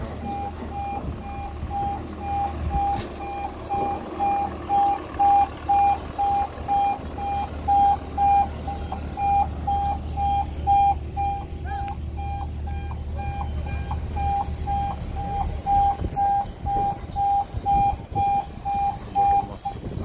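A heavy machine's warning beeper sounds about twice a second in one steady tone, with a few brief gaps, over the low rumble of a running engine that fades out near the end.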